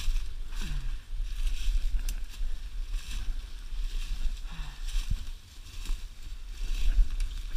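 Footsteps crunching and swishing through dry leaf litter and brush in uneven steps, over a steady low rumble of wind and handling noise on the microphone.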